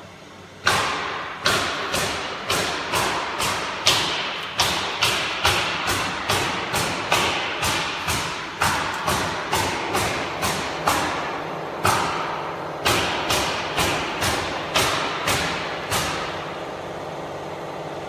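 A rapid series of sharp, ringing knocks, about two a second with a few short gaps, stopping about two seconds before the end; a faint steady hum goes on underneath.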